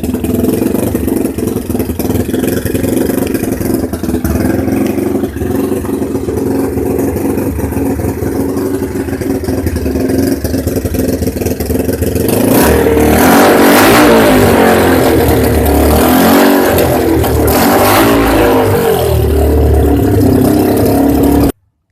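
Engine exhaust fitted with a 'machine gun' silencer, running with a rapid stream of pulses. About twelve seconds in it is revved and gets louder and harsher, then cuts off suddenly near the end.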